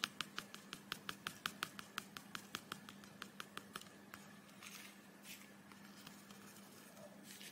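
A metal spoon stirring cocoa powder in a ceramic mug, ticking against the inside of the mug about eight times a second; the ticking stops about four seconds in, followed by a few soft scrapes.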